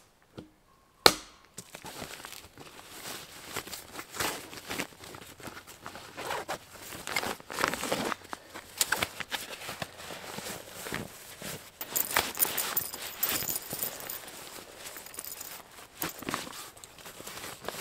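Hands rummaging through a fabric backpack: the material rustles and crinkles, with irregular knocks from straps, buckles and gear. There is one sharp knock about a second in, and a denser rasping run of fine clicks from about twelve to fifteen seconds in.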